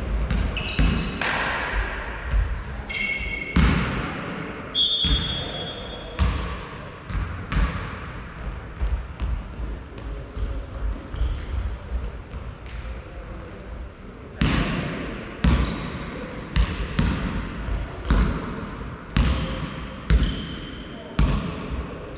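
Basketball bouncing on a sports-hall floor, each bounce echoing around the hall, with short high squeaks of shoes on the floor. In the second half it settles into a steady dribble of about one bounce a second.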